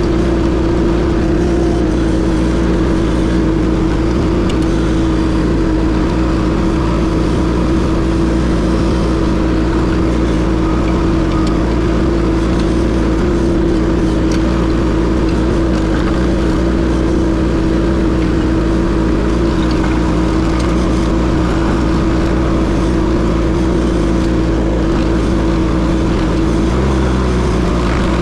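Case TL100 mini skid steer's engine running steadily under load, driving a Toro stump grinder attachment, with one unchanging high engine note throughout.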